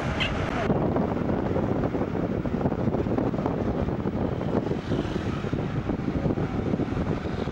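Steady rumble of a moving vehicle heard from inside it: engine and road noise. A higher hiss in the first moment cuts off suddenly.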